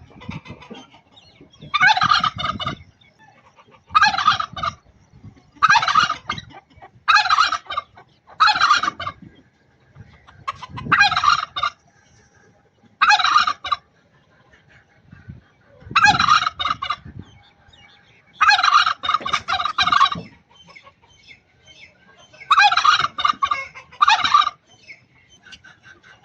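Turkey gobbling over and over: about a dozen short, rattling gobbles, each under a second long, coming every one to three seconds.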